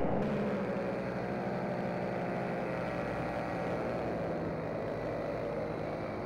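Paramotor engine and propeller running steadily in flight: an even, droning hum with several steady tones.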